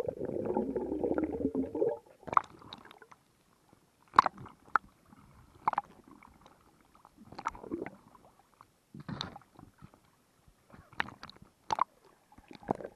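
Muffled underwater water noise picked up by a submerged camera: a rush of water and bubbles for about the first two seconds, then scattered sharp clicks and short soft swishes of moving water.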